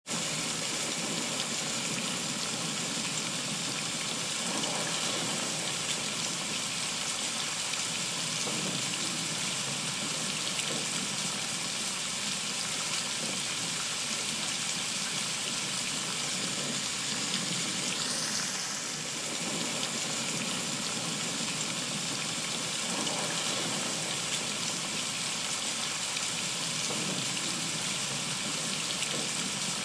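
Heavy rain falling steadily on trees and a wooden deck, an even hiss of countless drops with no letup.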